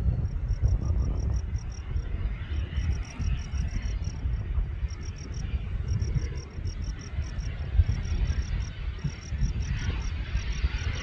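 Insects chirping in rapid, regular pulses over a steady low rumble. Near the end, the approaching Cirrus SF50 Vision Jet's Williams FJ33 turbofan begins to come up faintly.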